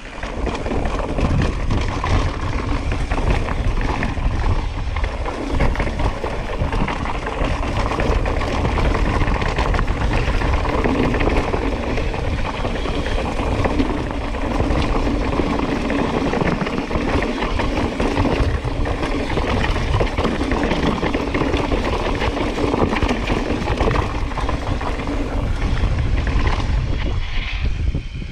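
Mountain bike descending a dirt trail at speed: wind buffeting the microphone, with the tyres rolling and crunching over dirt and rock.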